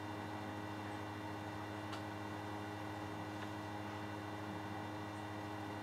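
Steady electrical mains hum with a faint background hiss, and a couple of faint ticks about two and three and a half seconds in.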